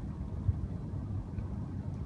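Steady low rumble of outdoor background noise, with one short soft thump about half a second in.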